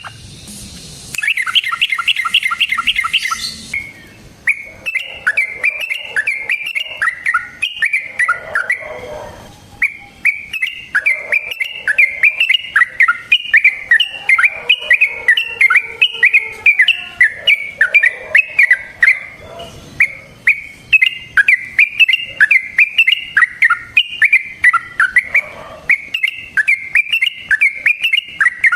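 Yellow-vented bulbul (trucukan) singing long, rapid chattering runs of quick notes, phrase after phrase with only brief breaks.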